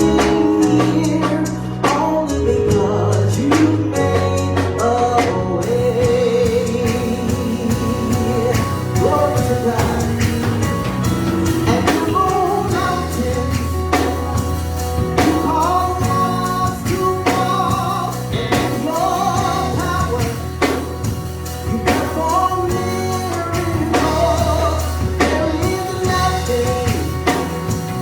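Gospel worship song: voices singing a melody over a band with a steady bass line and drum kit.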